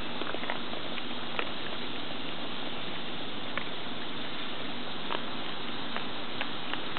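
Scattered light clicks of dry dog-food kibble as a raccoon picks through and eats it, over a steady background hiss.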